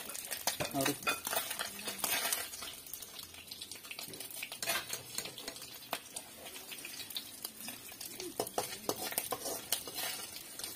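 A slotted metal spoon scraping and clinking against an aluminium kadai and a large aluminium plate as fried fish are scooped out, over the hiss of oil sizzling in the pan. The clinks come in clusters, thinning out in the middle and picking up again near the end.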